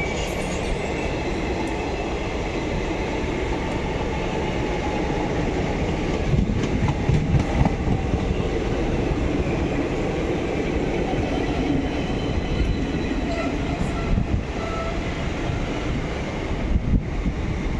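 Passenger coaches of an express train rolling past at speed: a steady rumble of steel wheels on the rails, with louder clatters of wheels over rail joints now and then.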